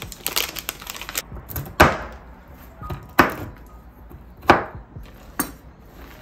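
Mixed nuts rattling out of a pouch onto a wooden board, then four loud cracks about a second apart as the nuts are crushed under the flat of a chef's knife pressed against the board.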